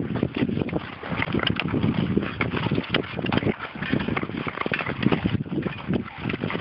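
Long-blade Nordic skates scraping and gliding over snowy lake ice, with ski-pole tips striking the ice in many short irregular knocks and some wind on the microphone.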